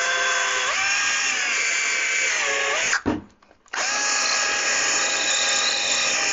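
Cordless drill with a 1/8 inch bit pre-drilling a pilot hole into a wooden 2x4, its motor whining steadily and stepping up in pitch about a second in. It stops about three seconds in and starts again a moment later.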